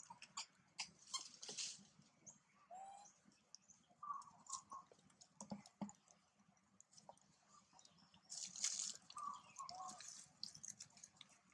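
Faint clicks and crackles of a long-tailed macaque eating and moving over dry leaf litter, with a denser rustle of leaves about three quarters of the way in. A few short high chirps come between them.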